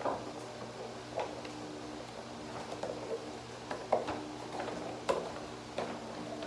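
Cardboard shoe box and paper shopping bag being handled and opened: scattered light taps, clicks and rustles, over a steady low hum.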